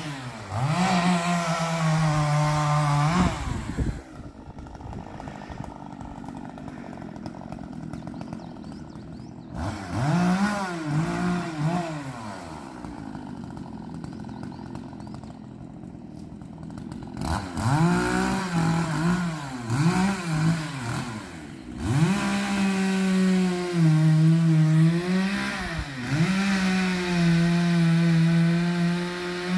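Petrol chainsaw cutting up a fallen tree: bursts of full throttle in which the engine note sags under load in the cut, dropping back to a steady idle between cuts. A long idle follows the first cut, then a few short revs and another idle, then a run of repeated revs and cuts.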